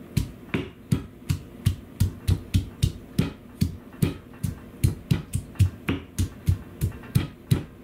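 Granite pestle pounding garlic cloves in an unpolished granite mortar: a steady run of strikes, about three a second. The garlic is being smashed to season the new stone mortar.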